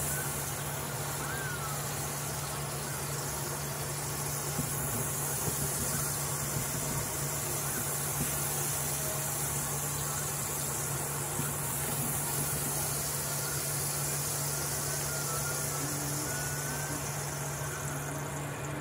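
Steady stovetop cooking noise: food frying and toasting on the hob, an even hiss over a constant low hum.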